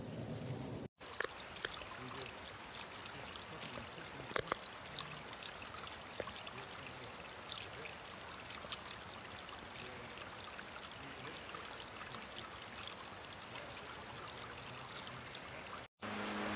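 Small stream of water trickling over the stones of a trail: a steady rush with scattered light clicks. The sound drops out briefly about a second in and again near the end.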